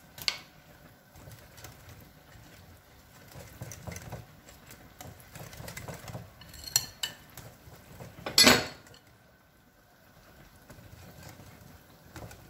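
Wire whisk stirring thick cake batter and flour in a glass bowl, with metal clicking and clinking against the glass. There is a ringing clink about seven seconds in and a louder knock a moment later.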